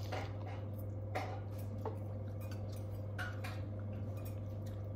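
Cutlery and dishes clinking at a table during a meal: a handful of scattered light clicks of a spoon against bowls and plates, over a steady low hum.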